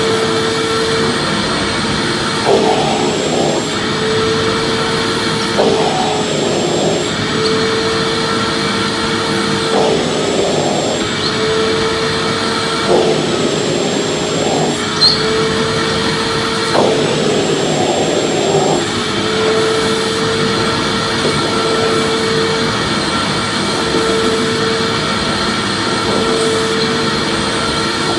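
Vacuum cleaner running steadily. Its motor hum breaks off every three or four seconds into a short, rougher, wavering stretch.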